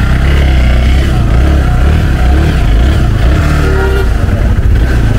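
Motorcycle engines running, a loud steady low rumble.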